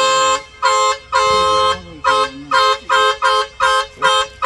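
Truck horn honking over and over at a wild elephant beside the road: two longer blasts, then a fast run of short toots, about three a second.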